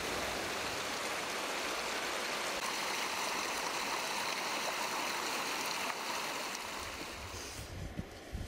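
Mountain stream rushing over rocks, a steady rush of water that fades near the end, followed by a few sharp clicks of trekking poles and boots on rock.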